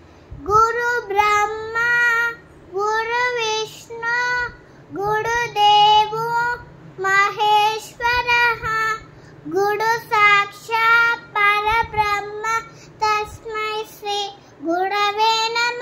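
A young girl chanting Sanskrit slokams in a high, sing-song voice, phrase by phrase with short breaks, many phrases starting with a rising slide in pitch.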